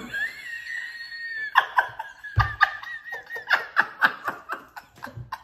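Two women laughing hard: a high held squeal for the first second or so, then a rapid run of breathy laughter pulses, about four to five a second, tapering off near the end. A low thump about two and a half seconds in.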